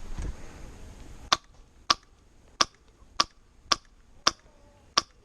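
Airsoft gun fired semi-automatically: seven sharp single shots, one about every 0.6 seconds.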